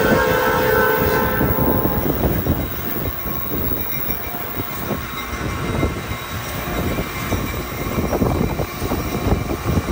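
Passenger train's horn sounding a chord of several steady tones, which fades out about a second and a half in. After that the train rolls along the rails with a steady rumble and scattered knocks from the wheels.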